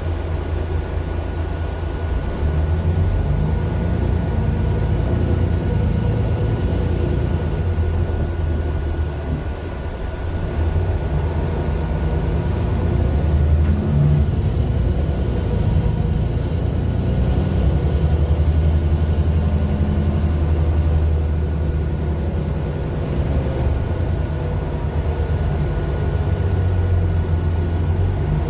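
Mercedes-Benz Citaro LE city bus under way, its Daimler OM 457 hLA six-cylinder diesel running with a deep rumble and a faint steady high whine. The rumble drops off about ten seconds in, then builds up again.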